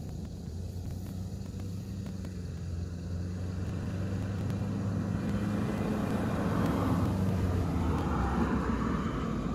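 A car driving past on the road. Its engine hum and road noise grow louder, peak about three quarters of the way through, then begin to fade.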